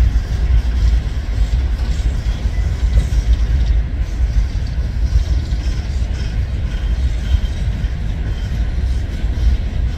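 Norfolk Southern freight train of coal cars rolling past: a steady low rumble of steel wheels on the rails, with a few faint short high squeals.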